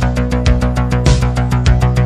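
Background music with a fast, steady beat over held bass notes.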